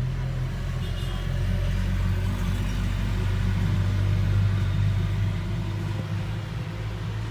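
A motor vehicle's engine running with a steady low rumble, growing louder toward the middle and easing off near the end.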